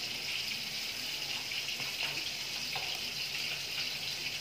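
Steady sizzling hiss of oil frying in a pan, with a few faint knocks of a knife and metal tongs on a plastic cutting board.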